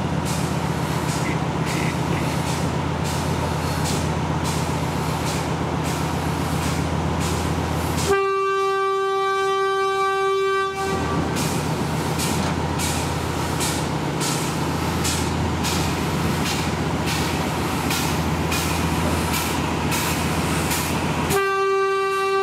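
Steam locomotive working slowly, its exhaust beating about twice a second over a steady low rumble. A long whistle blast sounds about eight seconds in and lasts nearly three seconds, and a second blast begins near the end.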